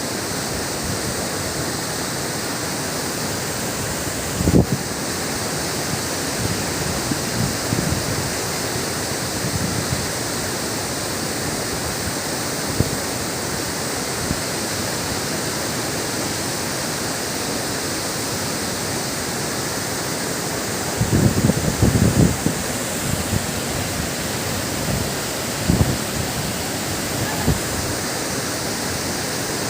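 Waterfall rushing in a steady, loud roar of falling water. A few brief low thumps break through, the strongest about four seconds in and a cluster around twenty-one seconds.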